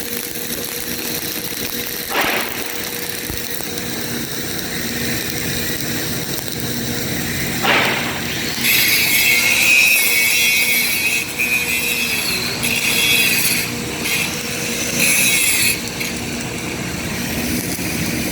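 Metalworking noise in a fabrication shop: a steady machine hum, a knock about 2 seconds in and another near 8 seconds, then a loud high-pitched hissing grind that comes in four spells of about a second each.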